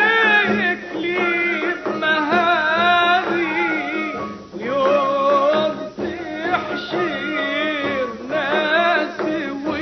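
Man singing an Arabic religious praise song (tamjeed) in Middle Eastern style, holding long melodic phrases with a wavering, ornamented pitch and short breaths between phrases.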